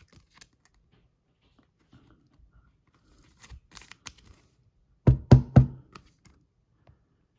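Faint rustling and clicking of plastic as a trading card is handled into a hard plastic case, then three quick, loud knocks a little past five seconds in.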